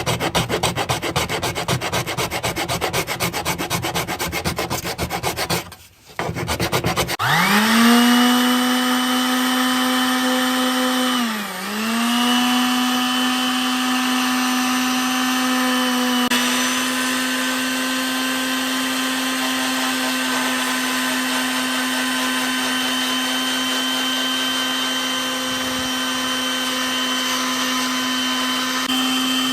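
Quick back-and-forth rubbing, as in hand sanding, for about six seconds. Then a small electric power tool's motor spins up to a steady whine, slows briefly about four seconds later, and runs on evenly.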